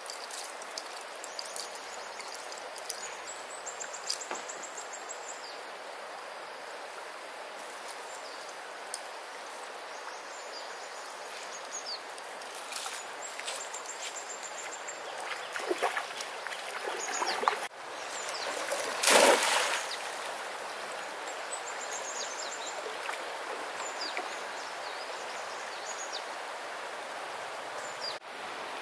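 Steady rushing of river water, with birds chirping high and briefly at intervals. A loud burst of noise lasting about a second comes about two-thirds of the way through.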